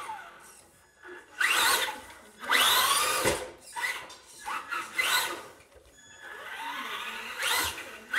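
Electric RC buggy's motor whining in repeated bursts of throttle, rising in pitch each time the car accelerates across a hardwood floor, with quieter gaps between runs.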